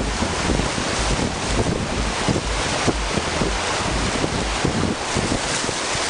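Whitewater rapids rushing and splashing around an open canoe, with wind buffeting the microphone in irregular low rumbles.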